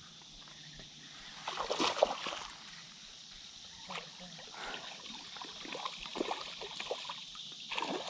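Shallow creek water sloshing and splashing, loudest about two seconds in and again near the end, where a hooked spotted bass thrashes at the surface. A steady high hiss runs underneath.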